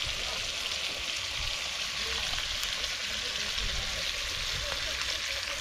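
Fish frying in hot oil in a pan, a steady sizzle.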